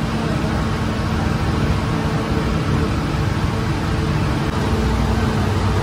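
Steady drone of bakery machinery, a low rumble with a constant hum, from the running oven and fans of a taftoon bread bakery.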